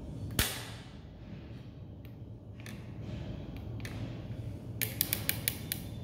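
Clicks from the controls of a Haier front-load washer's display circuit board being worked by hand: one sharp click about half a second in, then a quick run of about seven light clicks near the end as the program selector knob is turned.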